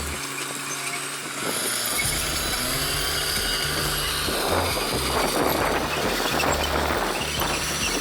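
Heavy earthmoving machinery running, its diesel engine working under load, mixed with background music that has a steady, changing bass line.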